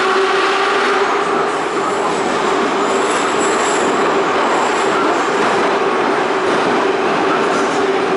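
81-717/714 'Nomernoy' metro train running at speed, heard from inside the carriage: a loud, steady rumble of wheels and running gear with a constant hum. A faint high squeal comes in between about three and four seconds in.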